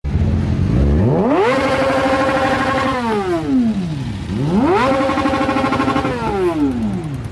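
Engine idling for about a second, then revved twice. Each time the pitch climbs, holds steady at the top for over a second, then falls back to idle.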